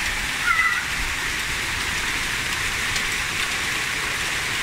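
Hail mixed with rain pelting lawn, pavement and leaves: a steady, dense hiss with scattered sharper ticks of individual hailstones.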